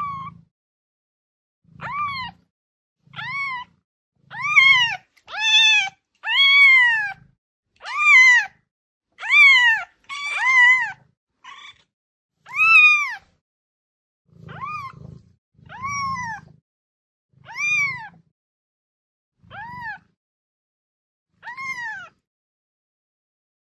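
Kitten meowing over and over: a string of high, short meows about one a second, each rising then falling in pitch, with silence between them and the loudest in the middle.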